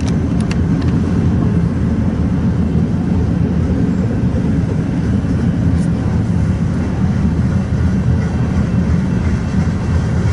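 Freight cars of a BNSF manifest train rolling past: a steady low rumble of wheels on rail, with a few sharp clicks in the first second and one more about halfway through.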